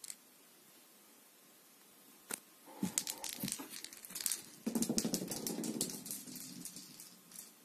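Low background for about two seconds, then a sharp click and crackly rustling with scattered clicks, loudest a little past the middle: close handling and movement noise at the camera.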